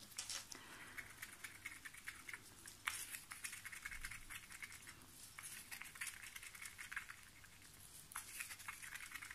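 A stirring stick scraping and clicking against a mixing cup as pigment powder is stirred into epoxy resin: a faint, irregular run of quick small clicks and scrapes.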